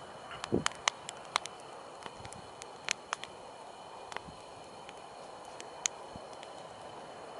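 Wood campfire crackling: irregular sharp pops over a steady hiss, with a dull low thump about half a second in.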